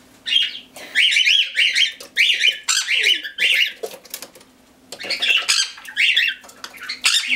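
Cockatiel squawking, harsh calls repeated in quick runs of about three a second, with a short pause a little after the middle.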